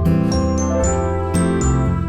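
Background music: a gentle instrumental tune with bell-like mallet notes over a bass line.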